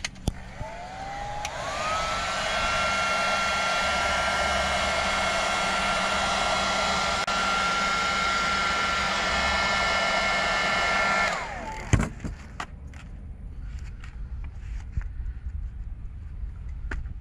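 Handheld electric air blower running for about ten seconds. Its motor whine rises as it spins up, holds steady over a rush of air, then winds down. A sharp knock follows shortly after it stops.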